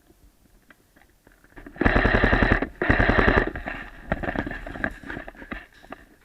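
Airsoft gun fired on full auto in two short rapid bursts, then scattered quieter shots and clicks.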